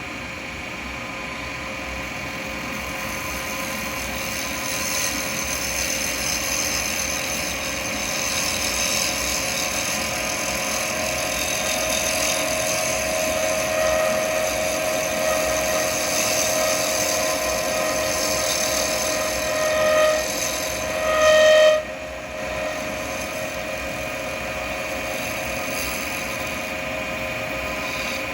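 Wood lathe spinning an acrylic pen blank while a carbide chisel cuts it: a steady scraping hiss over the lathe's steady whine, the sound changing as the blank turns from square to round and the cut gets smooth. About 22 s in the cut stops after two louder surges, leaving the lathe running on its own.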